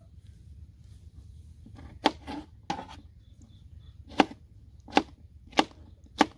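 A kitchen knife cutting okra into pieces: about seven sharp chopping knocks at uneven spacing, beginning about two seconds in.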